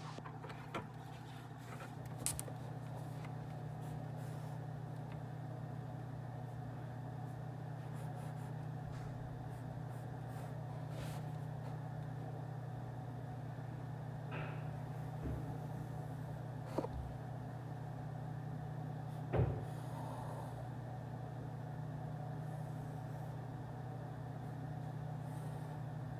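Office ambience played as white noise: a steady low hum like ventilation or air conditioning, with a handful of small clicks and knocks scattered through it. It fades up at the start.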